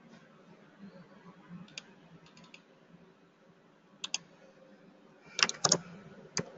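Computer keyboard typing: a few faint, scattered clicks, then a quick run of louder keystrokes near the end as a short terminal command is typed, over a faint steady hum.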